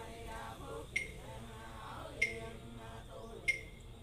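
Voices chanting prayers together, kept in time by a struck percussion instrument with a short ringing tone, three strokes about a second and a quarter apart.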